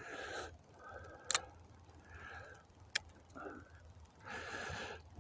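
Faint handling of a fishing reel and rod after a cast: several short bursts of cranking noise and two sharp clicks, about a second and a half and three seconds in.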